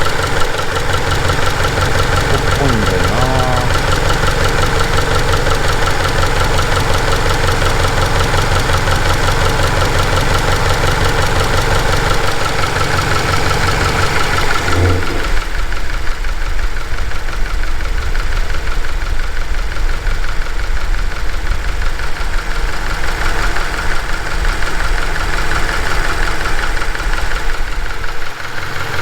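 Subaru Levorg's CB18 1.8-litre turbocharged flat-four idling with a fast, even clicking and tapping from the left side of the engine, duller from about halfway through. The owner finds the ticking about three times louder than on another car of the same type; the dealer calls it normal individual variation, not a fault.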